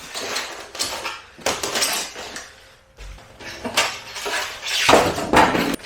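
Packing foam being pulled and broken off a metal toolbox cabinet: a run of irregular scraping, crunching and squeaking strokes with a few sharp clicks.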